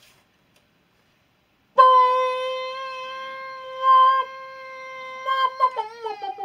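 A single long held note, steady in pitch and rich in overtones, comes in about two seconds in, then wavers and slides downward near the end.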